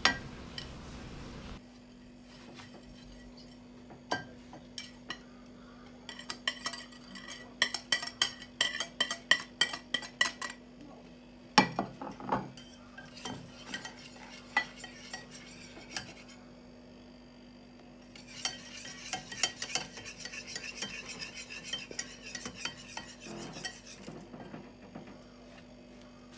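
Wire whisk stirring dry flour and sugar in a plastic bowl, the metal wires scraping and clicking against the bowl in spells: scattered clicks through the first half, then a longer run of rapid, steady scraping in the second half. A faint steady hum lies underneath.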